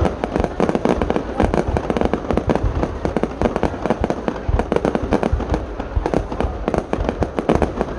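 Fireworks display at its height: a dense, continuous barrage of firework bangs, many each second, overlapping with no pause.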